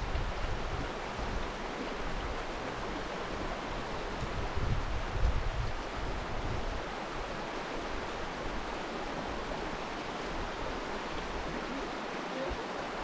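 Creek water rushing steadily, with low rumbling bumps now and then underneath.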